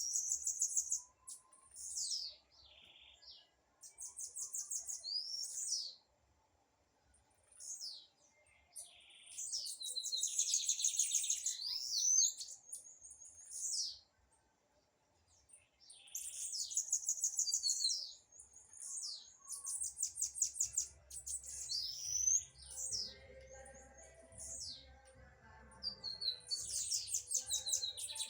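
Blue-black grassquit (tiziu) singing in repeated high-pitched phrases of rapid trills and quick rising sweeps, each a second or two long, with short pauses between them.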